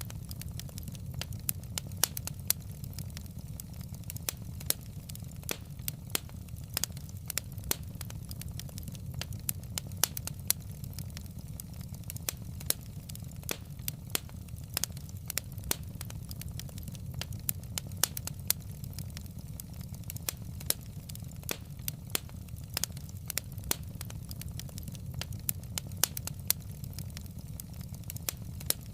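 Wood fire crackling in a fireplace: irregular sharp pops and snaps several times a second over a steady low rumble of burning logs.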